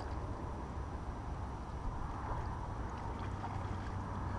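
Steady wind rumble on the microphone, mixed with the even rush of river water lapping at a muddy shore.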